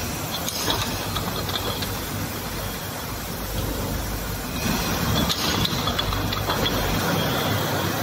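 Automatic bottle washing and brushing machine running: a steady motor hum under continuous mechanical rattling and clatter, getting louder about halfway through.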